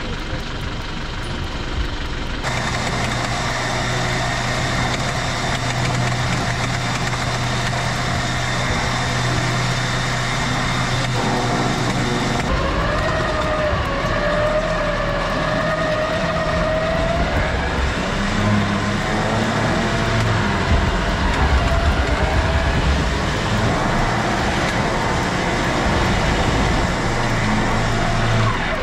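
A four-wheel drive's engine running under load while an electric winch hauls it up a steep muddy bank, the winch motor giving a wavering whine that rises and falls partway through.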